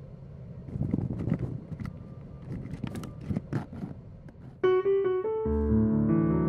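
Scattered soft knocks and clicks over a low rumble, then a piano starts playing sustained chords about two-thirds of the way through.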